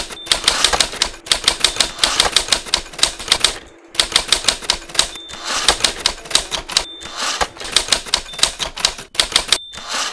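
Rapid typewriter-style key clicks in quick runs of about eight a second, broken by short pauses, with a brief high tone now and then.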